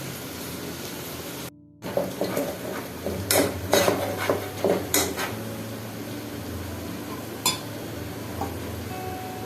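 A metal spoon clinking and scraping against a cooking pot while stirring, with a quick run of strikes between about two and five seconds in and one more later, over a steady hiss.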